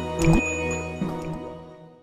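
Intro music: a sustained chord with water-drip and splash sound effects struck over it, fading out near the end.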